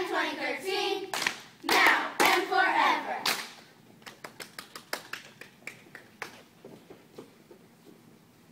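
A group of young children shouting a cheer chant together, punctuated by loud claps. After about three and a half seconds the voices stop and a scatter of quick light slaps and claps follows, fading away.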